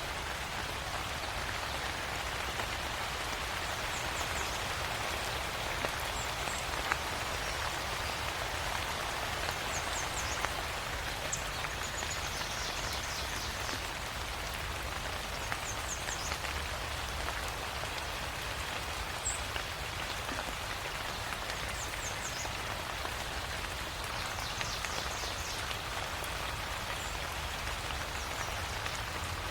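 Steady rain falling and pattering on surfaces. Short runs of faint high chirps recur every few seconds over it.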